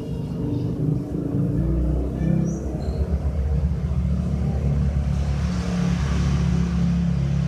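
A motor vehicle engine running with a steady low rumble; a hiss joins about five seconds in.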